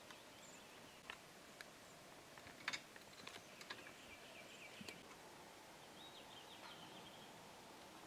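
Bohemian waxwing giving faint, high, thin trilling calls, twice, in the middle and latter part, over quiet outdoor background noise with a few sharp clicks, the loudest a little under 3 seconds in.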